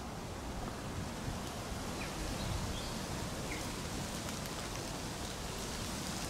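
Outdoor ambience: a steady rustling hiss with low wind rumble on the microphone, and a few faint bird chirps.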